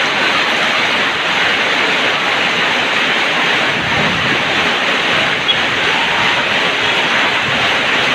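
Steady rain falling, an even hiss with no let-up, and one small sharp tick about five and a half seconds in.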